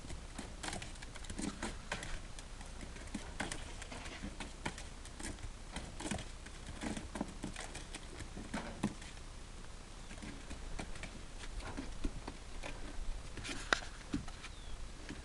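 Scattered light taps and rustling on dry straw and grass, coming at irregular intervals over a low steady rumble.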